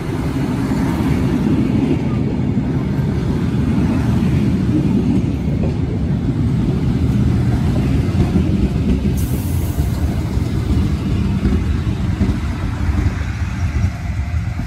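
A vehicle running with a steady, loud, low rumble, and a brief hiss about nine seconds in.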